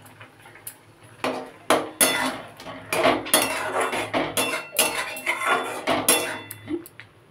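A metal spatula scraping and knocking against a metal kadai as fritters are stirred in simmering gravy. The clatter begins about a second in and goes on in quick, irregular strokes until just before the end.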